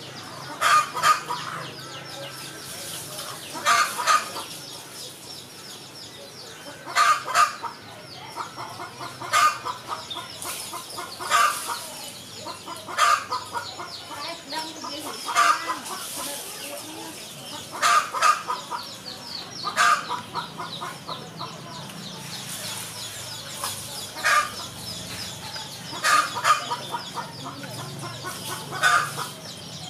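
Chickens clucking nearby, short calls repeating every second or two over a faint, steady high-pitched background.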